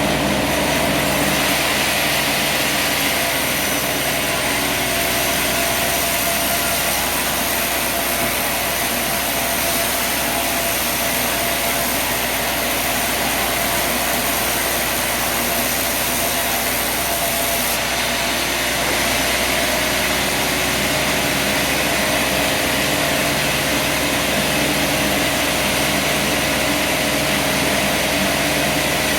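Sawmill engine running steadily, an even drone with a steady hiss.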